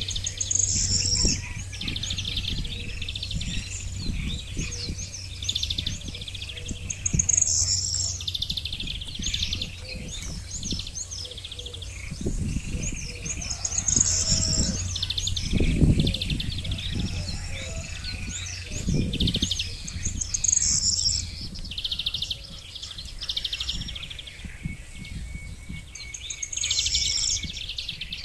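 Small birds chirping and singing all through, with one bright song phrase coming back about every six or seven seconds. Under the birdsong there is a low rumbling noise that grows louder in the middle.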